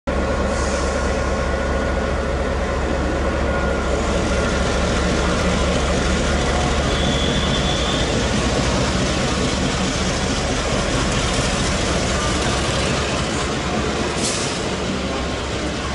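Two stationary Taiwan Railway E200-series electric locomotives running, a steady mechanical hum and rush of noise, with a short hiss near the end.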